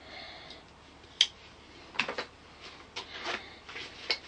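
Handled knives and multi-tools clicking and knocking: one sharp, loud click about a second in, then several lighter clicks and knocks as the metal tools are picked up and set down.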